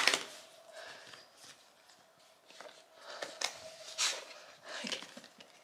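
Small dog mouthing and tugging at a plastic toy still on its card packaging: faint scattered scrapes and rustles, a few a little louder about three to five seconds in.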